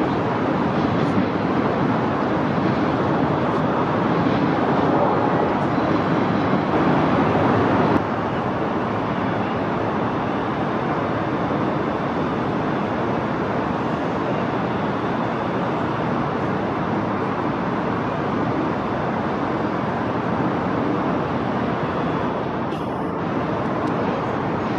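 Steady, even rumble of city traffic and urban noise heard from high above, with no single distinct vehicle; it steps down a little in loudness about eight seconds in, where the recording cuts.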